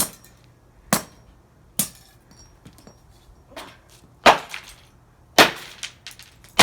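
Hammer blows smashing the plastic housing of a Dreamsky DS206 alarm clock radio: a string of sharp, cracking impacts at uneven intervals of about a second.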